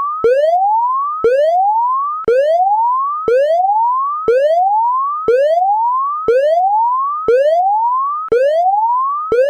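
Electronic whoop alarm: a harsh rising tone that sweeps upward over about a second, drops back abruptly and starts again, about ten times in a row.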